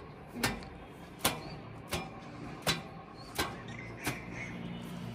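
Six sharp slaps at an even pace, about one every 0.7 seconds: something being beaten to knock the dust out during house dusting.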